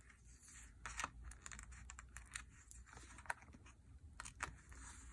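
Faint small clicks and ticks of fingernails picking at and peeling the paper release backings off foam adhesive dimensionals stuck to a cardstock label, at irregular moments.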